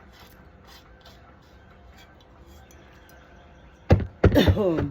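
A sharp knock about four seconds in, then a rooster's loud, brief squawk near the end.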